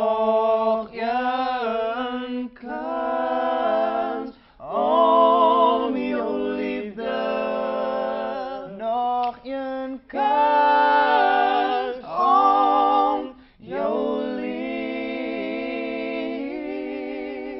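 Three male voices singing a cappella in close harmony, in phrases with short breaks between them, ending on a long held chord.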